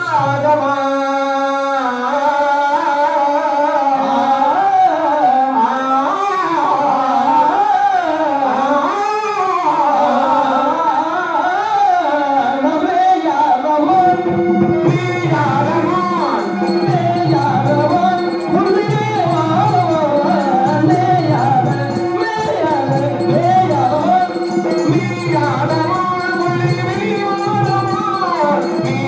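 Tamil stage-drama music: a singer's melodic line with winding, ornamented pitch. About halfway through, a steady drone and a regular drum beat with bright ticking percussion come in under the melody.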